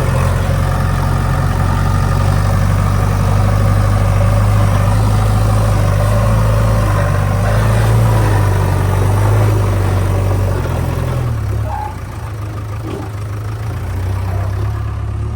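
JCB 3DX backhoe loader's diesel engine running steadily at working revs, then easing to a lower, quieter note about three-quarters of the way through.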